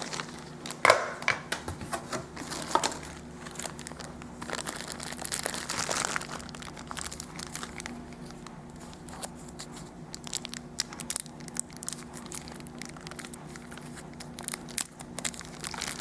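Packaging being handled and unwrapped, with crinkling and rustling and scattered small clicks, the loudest rustling about five to six seconds in.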